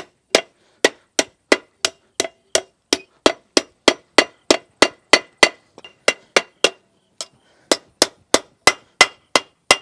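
Hand hammer striking a steel bar held in a bench vise, forging the curl of a hook: a steady run of sharp, ringing metal-on-metal blows about three a second. There is a brief pause with one light tap around seven seconds in.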